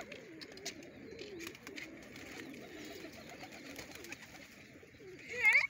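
Flock of domestic pigeons cooing, low wavering calls overlapping. About five seconds in, a short, loud, high-pitched wavering cry rises above them.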